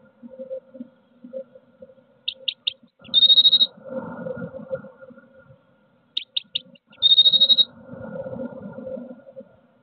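Blue tit song, heard twice: three thin high notes followed by a short trill, with a low muffled rumble between the songs.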